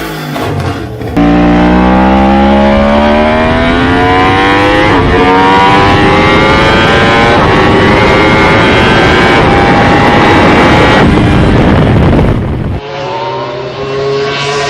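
Yamaha R1 crossplane inline-four engine revving hard under acceleration: the pitch climbs steadily, steps down at a gear change about five seconds in, then climbs again before the sound falls away near the end.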